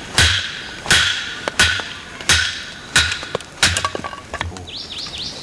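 Wooden baton striking the spine of an ESEE-5 knife set in a piece of oak firewood: six sharp knocks, about two-thirds of a second apart, each with a short ring, as the blade is batoned through and splits the log.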